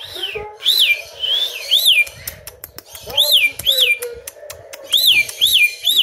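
A cockatiel whistling its song: a string of quick whistle notes, each rising and falling, in groups of two or three, with a pause and a few short clicks near the middle.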